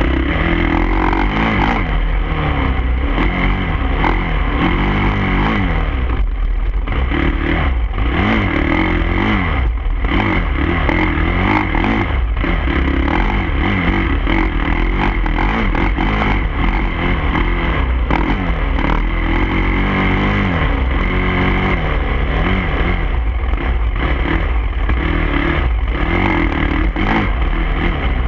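Off-road motorcycle engine heard from on the bike, its pitch rising and falling again and again as the rider opens and closes the throttle, over a heavy low wind rumble and jolts on the mounted camera.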